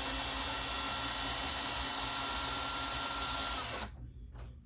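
Power drill running steadily at speed for a few seconds, then winding down and stopping, followed near the end by a short high blip.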